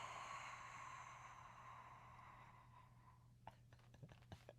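A person's long, breathy exhale through the open mouth with the tongue stuck out, a voiceless hiss that fades over about three seconds, followed by a few faint clicks near the end.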